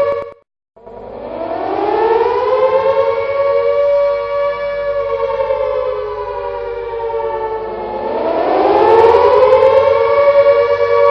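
Air raid siren, as many overlaid copies stacked into one dense wail. It cuts off just after the start, then after a short silence winds up in a rising wail and holds. It sags a little, then winds up again about eight seconds in.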